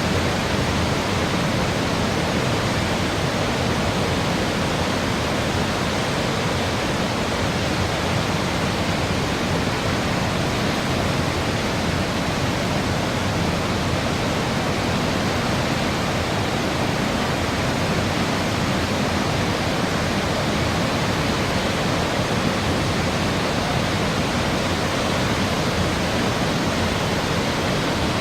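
Cumberland Falls on the Cumberland River: the steady, unbroken rush of a large waterfall.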